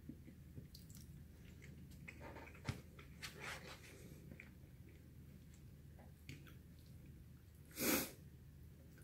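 Quiet eating sounds: soft chewing and a few light clicks and scrapes of a plastic fork in a plastic takeout container. Near the end comes one short, sharp breath through the nose, the loudest sound.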